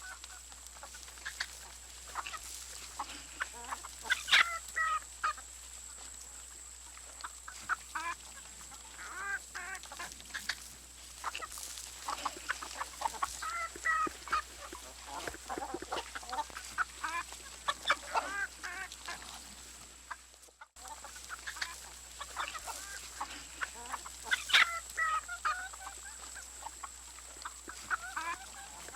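Chickens clucking in a barnyard, many short calls overlapping, with two louder squawks about four and twenty-four seconds in. A faint steady high whine and low hum run underneath, and the sound drops out briefly about twenty seconds in.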